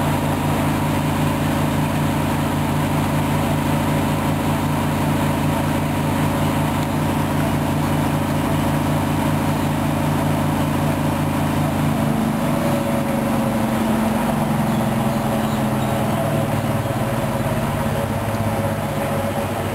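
Hoover washing machine on an intermediate spin between rinses: a steady motor hum with a drum whirr, whose pitch shifts and wavers about twelve seconds in as the motor changes speed.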